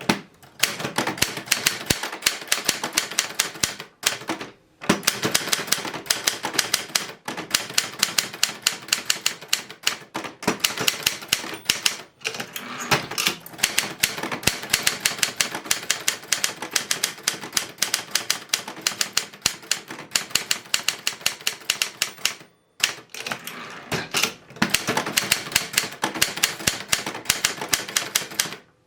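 1957 Adler Special standard office typewriter being typed on fast and steadily: a rapid run of keystroke clacks, several a second, broken by a few short pauses.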